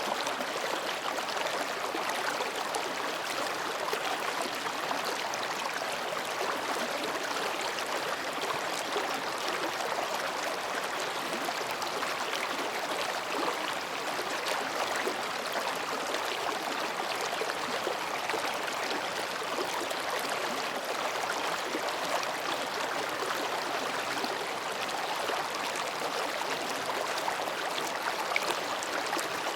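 Mountain stream babbling steadily as it runs between rocks, an even rush of flowing water without pause.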